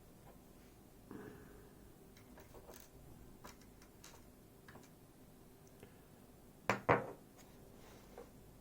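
Small metallic clicks and taps of lock parts and tools being handled during disassembly of a Miwa JN lock, with two louder sharp knocks close together about seven seconds in.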